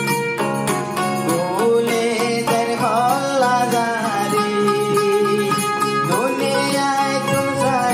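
Rohingya tarana: a male voice singing a gliding melody over a plucked-string accompaniment.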